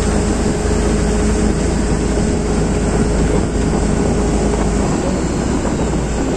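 Parasail tow boat's engine running under way, a steady loud drone with a hum that fades about five seconds in, over the rush of the boat's wake.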